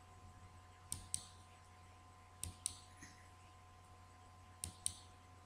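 Computer mouse clicking: three pairs of sharp clicks, each pair about a fifth of a second apart, the pairs coming about a second and a half apart, over a faint steady hum.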